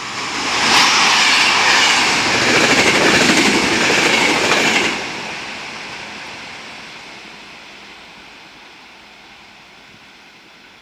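Electric passenger train passing at high speed: a loud rush of wheel and rail noise for about four seconds that drops off sharply as the last car goes by, then fades away.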